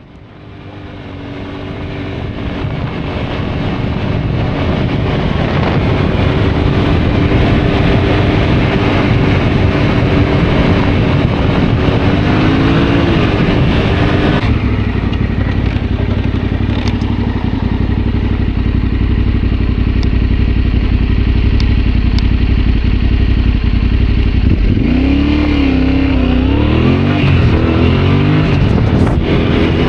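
Yamaha Ténéré adventure motorcycle's engine running at a steady road speed under a broad rushing noise, fading in over the first few seconds. About halfway through the sound changes abruptly to a deeper, duller engine note, and near the end the engine pitch rises and falls as the throttle is worked.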